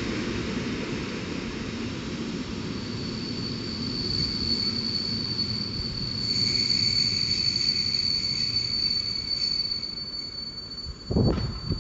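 Koleje Mazowieckie electric multiple unit rumbling through the station, with a steady high-pitched wheel squeal that sets in a few seconds in and grows louder for a while. A brief loud thump comes near the end.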